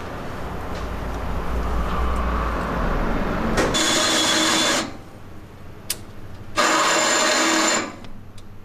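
Electric drill running in two short bursts of about a second each, steady-pitched, boring out holes in the steel truck frame to 3/8 inch. A low steady rumble comes before the first burst, and a sharp click falls between them.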